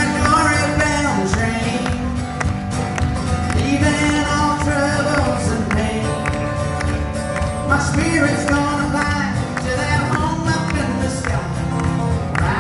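Live country-gospel song: a man singing with a strummed acoustic guitar and band accompaniment.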